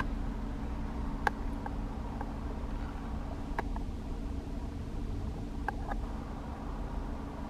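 Toyota GR Yaris's 1.6-litre turbocharged three-cylinder engine idling steadily, heard from inside the cabin. A few light clicks sound over it.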